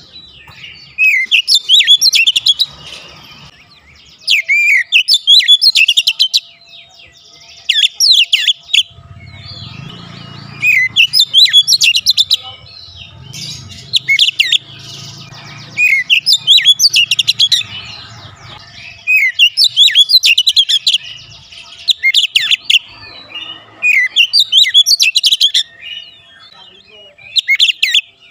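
Oriental magpie-robin (kacer) singing loudly in short bursts of fast, high whistles and twittering notes, a new phrase every second or two with brief pauses between.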